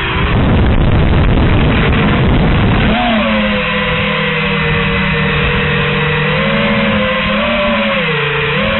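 TBS Source One FPV quadcopter's motors and propellers heard from its onboard camera. For about the first three seconds there is a rush of air and prop noise. Then comes a steady buzzing whine whose pitch dips briefly several times near the end as the throttle is eased.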